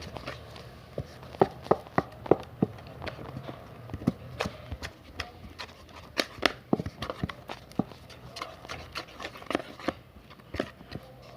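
Slime being worked by hand, giving a run of irregular wet clicks and pops, a few a second.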